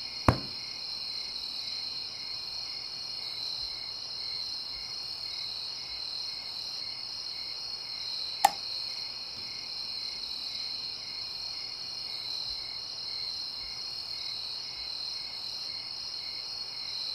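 Cricket chirping steadily, a high continuous trill with a faint pulse about twice a second. Two sharp clicks cut through it, one right at the start and one about halfway through.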